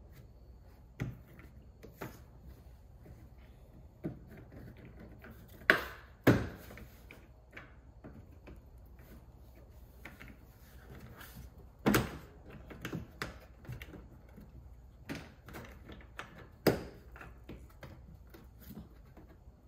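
Scattered clicks and knocks from parts and tools being handled and fitted, with a pair of louder knocks about six seconds in and single sharper ones near the middle and about three-quarters through.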